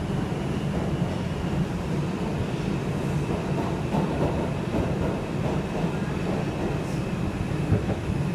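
Interior of an R142 subway car running at speed between stations: a steady rumble of wheels on rail, with a faint steady high whine above it.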